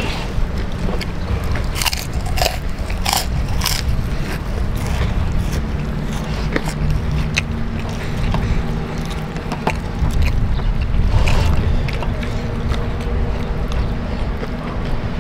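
Close-up eating sounds: crisp biting, crunching and chewing of lettuce-wrapped smashed fried chicken with sambal, with scraping as food is gathered by hand off the paper-covered table. A steady low rumble runs underneath.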